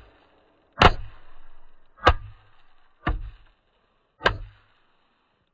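Rubber mallet striking a heap of Snappers bang snaps on a wooden board, four blows about a second apart. Each blow gives a sharp crack over a dull low thud.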